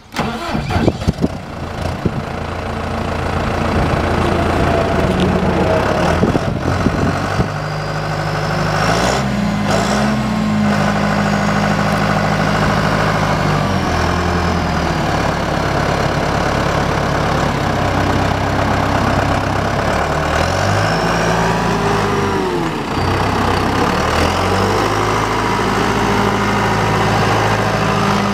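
John Deere cab tractor's diesel engine running at idle, its speed stepping up and down a few times, after a few knocks in the first couple of seconds.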